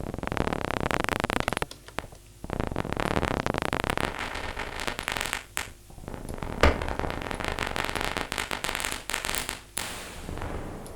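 Synthesized imitation of paper crumpling from the Vital soft synth: dense, irregular crackling clicks of filtered brown noise. It plays in bursts with brief pauses about 2, 5.5 and 10 seconds in, and one sharper click a little after the middle.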